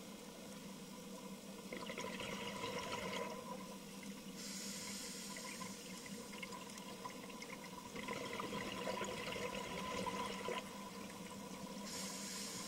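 Scuba diver breathing through a regulator underwater: two bubbling exhalations, about two seconds in and about eight seconds in, each followed by the higher hiss of an inhalation. A faint steady whine runs underneath.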